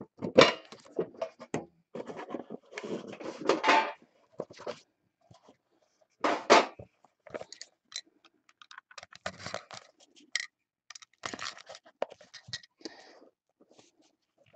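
Cardboard trading-card box being handled and opened by hand: irregular scrapes, rustles and light taps of cardboard sliding and knocking on a table.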